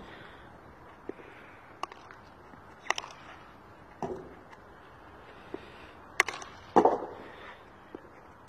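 Field hockey stick striking a ball on the bounce: a few sharp cracks spread over the seconds, the loudest near the end, with lighter knocks between.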